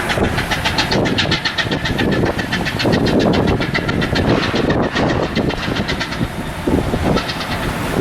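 Loud machinery noise with a rapid, even clatter of about ten clicks a second, easing off after about six seconds.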